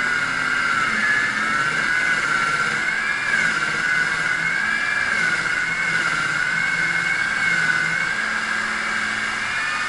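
A machine's motor running with a steady high whine that wavers slightly up and down in pitch.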